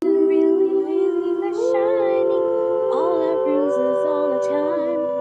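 Wordless hummed music: several long held notes sounding together, stepping to new pitches every second or two.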